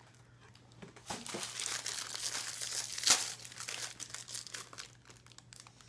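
Plastic wrapper of a tube of biscuits crinkling and tearing as it is opened, with a sharp crackle about three seconds in.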